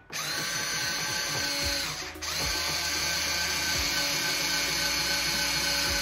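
JANGKLIFE cordless electric screwdriver driving the lock cylinder's fixing screw into the door edge. The motor whine rises as it spins up, breaks off briefly about two seconds in, then runs steadily.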